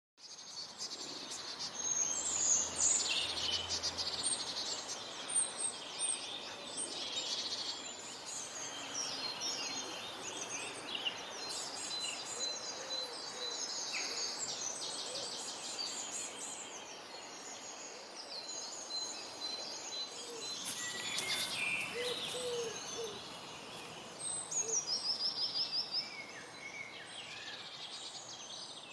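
Several songbirds singing at once, overlapping chirps and short song phrases, with a fast, even trill near the end.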